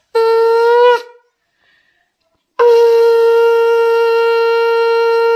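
Conch shell (shankha) blown as the ritual call at a household blessing: one short blast, then, after a pause of about a second and a half, a long steady blast that is still sounding at the end.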